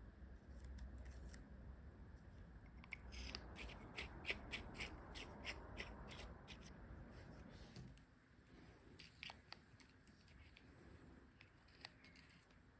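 Faint run of small, sharp clicks, about a dozen in quick succession, followed by a few scattered single clicks.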